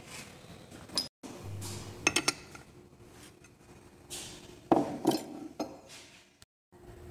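Scattered metallic clinks and knocks of metal parts and tools being handled on a workbench, with a quick cluster of clinks about two seconds in and a louder pair of knocks near the end.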